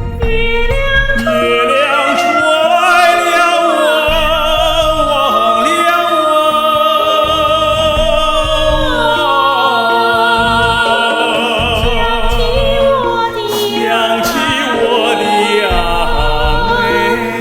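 A solo voice sings a Yunnan folk song in a classical, operatic style with wide vibrato, over a sustained instrumental accompaniment.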